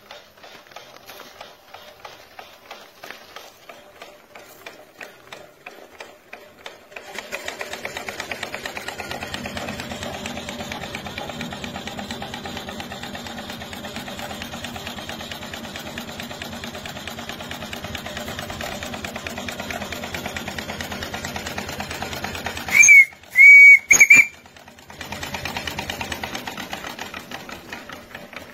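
Steam engine of a steam-powered motorbike running: first a light ticking beat, about three a second, then about seven seconds in a louder, rapid mechanical clatter. Near the end of the running, two short, loud blasts of a steam whistle, after which the beat briefly drops away and picks up again.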